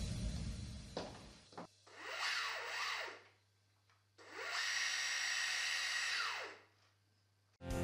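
Yamaha SeaWing II sea scooter's two electric thruster motors running briefly out of the water, twice. Each time a whine rises as the propellers spin up and falls away as they spin down; the second run holds steady for about two seconds.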